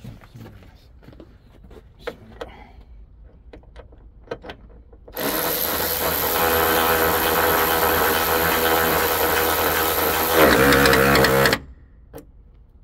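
A power tool's motor runs steadily and loud for about six seconds, starting and stopping abruptly, its pitch wavering shortly before it cuts off. Faint clicks and taps come before it.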